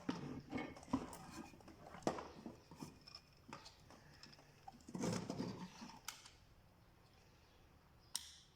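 Small objects being handled by hand: a run of sharp clicks, taps and rustles, busiest in the first two seconds and again about five seconds in, with one sharp click near the end.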